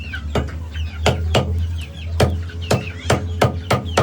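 Chicken meat being chopped with a blade: about ten sharp blows at uneven intervals, with live chickens clucking between them and a steady low hum underneath.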